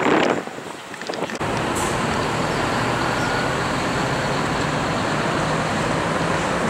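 Steady expressway traffic noise, the even sound of passing vehicles, cutting in suddenly about a second and a half in and running on unchanged.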